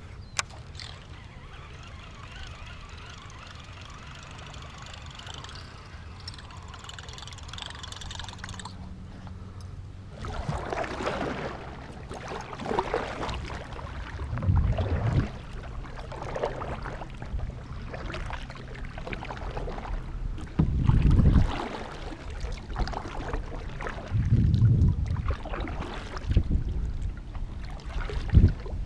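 Kayak paddle strokes in calm water: a splashing swish about every two seconds, a few with a low thump, after several seconds of steady low hiss.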